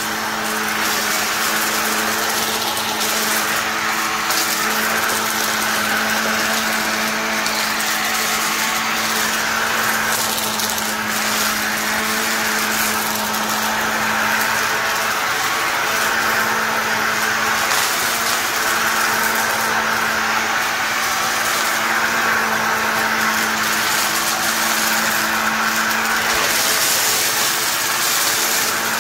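A vacuum cleaner running steadily: a constant motor hum with a rushing hiss of air above it that swells and dips a little.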